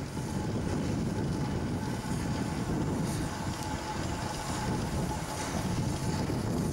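Climax geared steam locomotive No. 1694 working slowly, a steady low rumble of its exhaust and running gear, with a faint thin hiss-like tone above it and some wind on the microphone.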